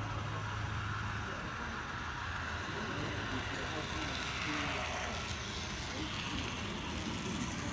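Steady room noise with indistinct voices in the background and a low hum that fades out about three seconds in.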